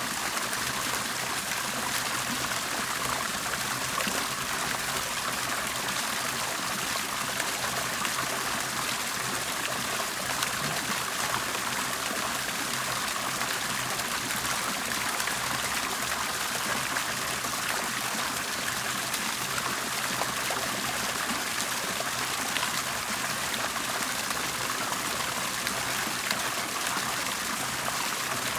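Water bubbling and trickling steadily, with a continuous rushing hiss full of small splashes and drips.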